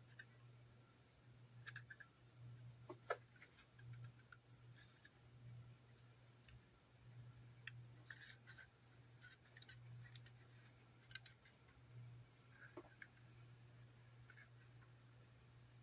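Faint scattered clicks and light scratching of small plastic model parts being handled and pressed into place, over a steady low hum.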